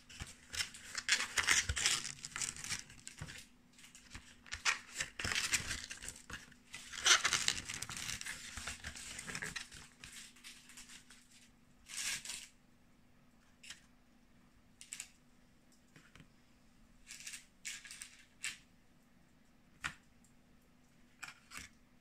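Thin cardboard pastry boxes being folded and handled: crackling, crinkling card, dense for the first ten seconds or so, then a few short rustles and taps.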